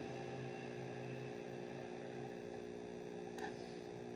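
Steady electrical hum, with a faint single click about three and a half seconds in.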